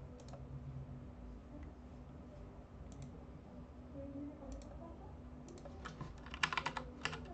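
Computer keyboard being typed on: a few isolated key clicks, then a quick run of keystrokes starting a little after halfway through. A low steady hum lies underneath.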